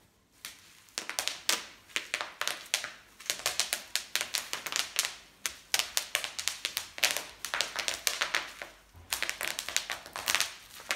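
Bubble wrap popping as it is stepped on: irregular clusters of sharp pops, starting about a second in, with crinkling of the plastic between them.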